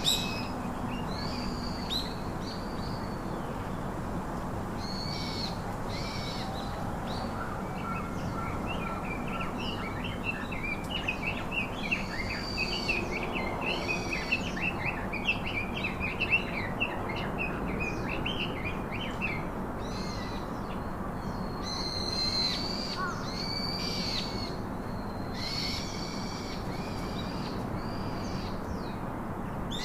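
Birds calling: short arched calls repeat every couple of seconds. A fast run of chattering notes starts about a third of the way in and runs past the middle.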